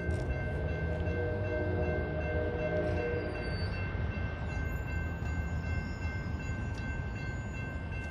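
Locomotive horn on a CSX intermodal train sounding a held chord that stops about three and a half seconds in, over the low rumble of the passing train. A thin, steady high-pitched tone runs underneath throughout.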